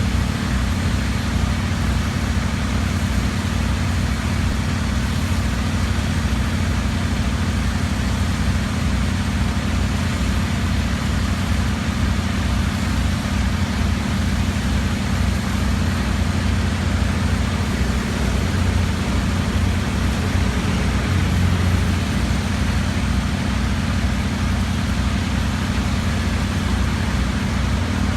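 A heavy equipment engine running steadily at an even, low drone, with a slight rise in the lower hum about twenty seconds in.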